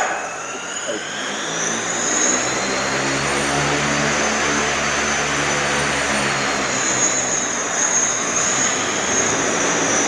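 Propeller motors of a large winged prototype ocean-sampling drone running on the ground, a steady engine drone with a high whine that rises in pitch over the first two seconds and then holds.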